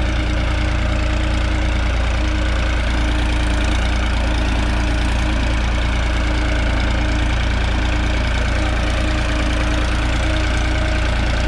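New Holland 3630 TX Plus tractor's three-cylinder diesel engine running steadily under load while pulling an 18-disc harrow through ploughed soil.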